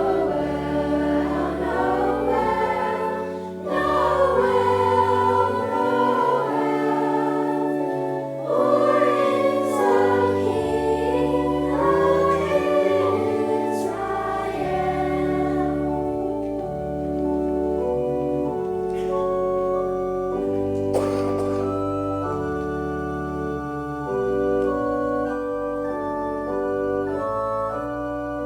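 Choir singing with organ accompaniment. About halfway through, the voices stop and the organ plays on alone in sustained chords.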